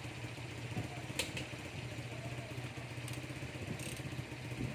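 An engine idling steadily with a low hum, with a couple of sharp metallic clicks, one about a second in.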